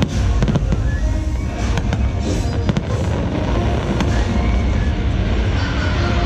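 Fireworks going off in several sharp bursts at irregular intervals, over loud show music with a deep bass.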